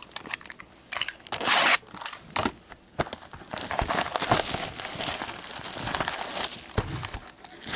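Plastic wrap on a sealed hockey card hobby box being slit with a box cutter and torn off: a sharp tearing rip about a second and a half in, then a few seconds of crinkling as the wrap is pulled away.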